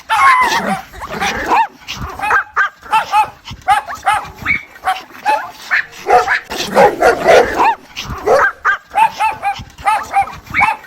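A mother dog calling her puppies with a rapid series of short, high, arching whines and yips, about two or three a second, crowding together for a couple of seconds around the middle.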